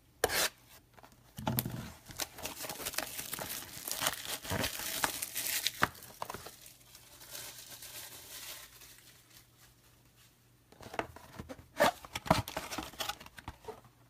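Plastic wrapping being torn and crinkled as a sealed box of baseball cards is opened. The crinkling is densest over the first six seconds, thins out for a few seconds, then returns as a few sharper crackles near the end.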